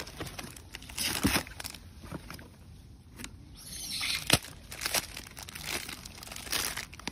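A macaque pulling at a torn cardboard box and crinkling and tearing a plastic snack wrapper: irregular rustling and crackling with small sharp clicks, and a denser crinkle with one sharp crack about four seconds in.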